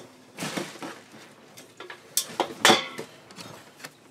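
Things being handled on a desk: a few irregular knocks and rustles, loudest about two and a half seconds in.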